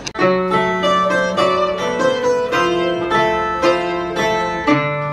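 A Portuguese guitar played live, plucking a melody of bright, quickly decaying notes over lower held notes.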